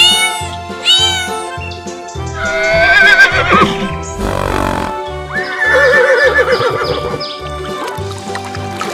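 Kittens meow twice near the start, then a horse whinnies: a long, wavering call that falls in pitch at the end. Another wavering animal call follows a couple of seconds later, all over background music with a steady beat.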